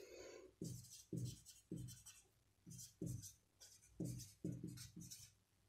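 Marker pen writing a word by hand: a faint series of about a dozen short, quick strokes, each starting sharply and dying away.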